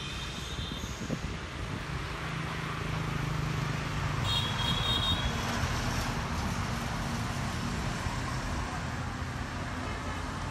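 Road traffic noise: engines of passing vehicles, swelling and fading, with a brief high tone about four seconds in.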